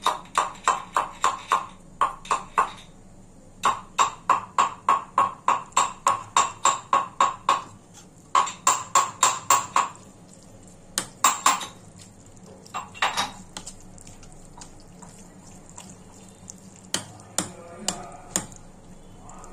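Rhythmic clicking of a rolling pin working on a board as momo wrappers are rolled out. The clicks come about four a second in runs for the first ten seconds or so, then only now and then.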